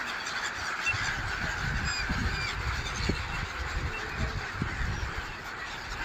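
A large flock of gulls calling over the water, a dense steady chorus of squawks, with a few nearer calls standing out about two seconds in. A low rumble runs underneath.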